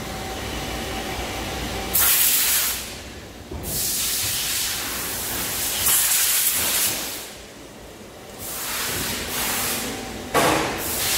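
Compressed-air blow gun hissing in about five separate blasts of a second or two each, cleaning freshly turned steel parts at a CNC lathe, over the steady hum of the shop's machines.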